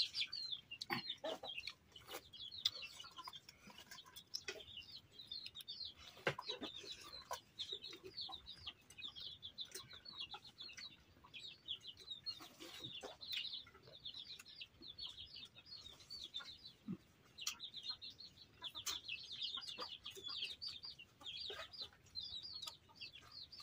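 Birds chirping in quick, high, continuous twitters, with a few faint sharp taps now and then, the clearest about six seconds in.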